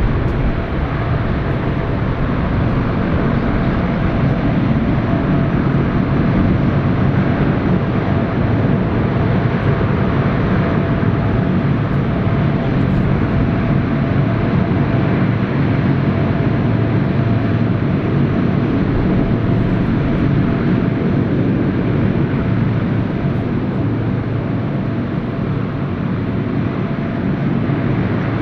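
Lockheed C-130H Hercules turboprops running on the ground, their propellers turning. A steady low drone with a steady whine over it.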